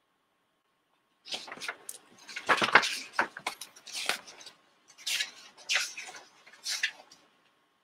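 Handling noise from things being moved around on a desk: a run of rustles and light knocks in three bunches, from about a second in until near the end.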